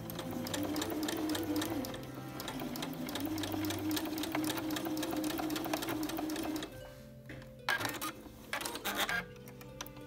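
Electric home sewing machine stitching steadily, its needle clattering fast over a motor hum, then stopping about two-thirds of the way through. Two short noisy bursts follow near the end. Soft background music plays underneath.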